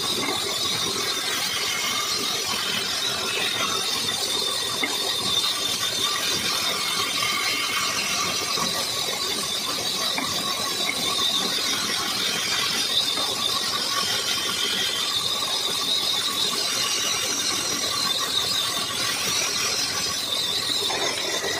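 Band saw running steadily while blocks of wood are fed through its blade and cut.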